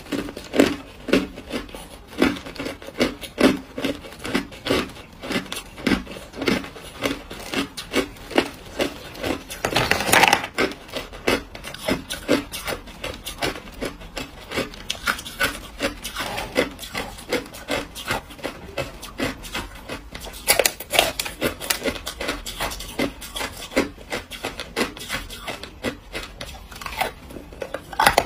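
Hard ice being bitten and chewed: a steady run of sharp crunches, about two or three a second, with a louder, longer crunch about ten seconds in.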